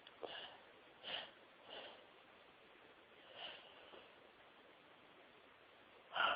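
A woman sniffling and snorting through an irritated nose between sneezes of a sneezing fit: four short sniffs in the first four seconds, then a much louder, sharper one near the end.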